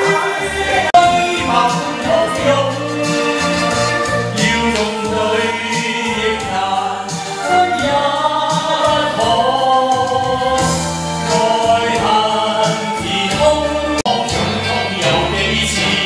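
A man singing a Chinese-language karaoke song into a handheld microphone over a backing track with a changing bass line.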